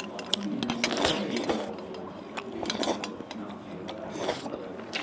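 A person eating soup from a stainless-steel bowl: several short slurps with chewing, and chopsticks clicking against the bowl.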